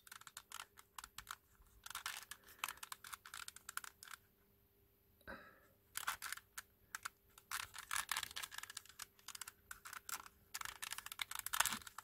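Soft, rapid clicking and clacking of a cast resin twisty-puzzle chess knight being twisted in the hands, its pieces knocking as the layers turn, with a pause of about a second near the middle.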